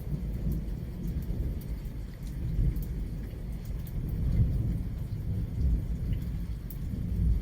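Thunderstorm: rain falling, with low rumbling thunder underneath and scattered raindrops ticking close by.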